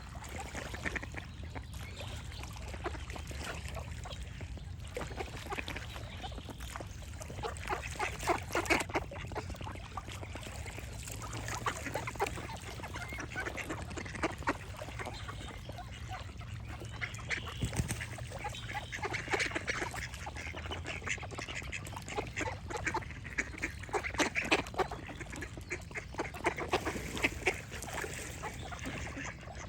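Ducks quacking in repeated bouts of short, rapid quacks, some louder than others, over a steady low background rumble.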